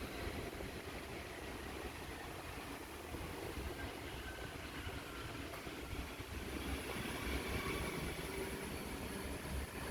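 Steady low rumble with a faint hiss above it, an even background noise that neither rises nor falls.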